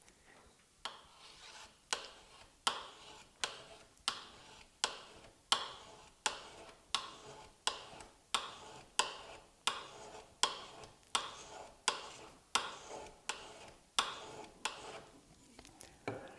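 A burnisher drawn repeatedly along the edge of a steel card scraper clamped in a vise, about twenty quick, even strokes, each a sharp metal-on-metal scrape that fades. This is the burnishing that forms the scraper's burr, and the sound changes as the burr forms.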